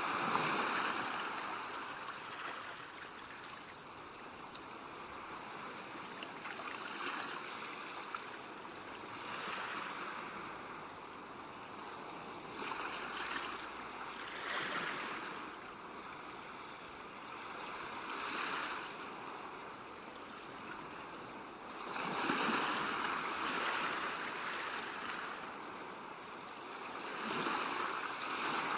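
Ocean surf: waves breaking and washing up in irregular swells every few seconds, the biggest about three-quarters of the way through and again at the end.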